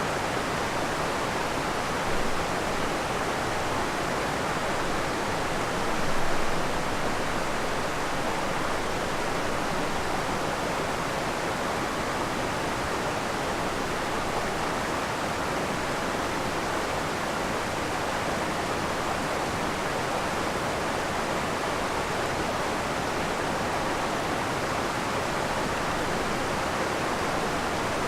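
Steady, even rush of a creek waterfall pouring over rock, with two brief swells about two and six seconds in.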